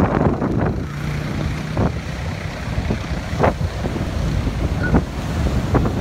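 Heavy surf breaking and washing around ocean pier pilings, with strong wind buffeting the microphone in irregular gusts.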